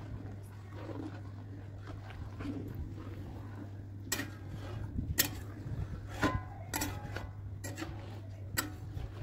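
Long metal spatula stirring milk in a large aluminium kadhai as it is reduced to khoya, with a series of sharp metallic clinks and scrapes against the pan from about four seconds in, over a steady low hum.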